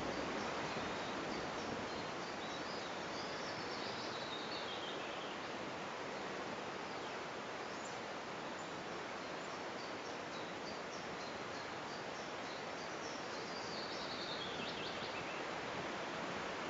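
Steady outdoor rushing noise of wind in the trees. A small songbird sings a short descending phrase twice, a few seconds in and again near the end.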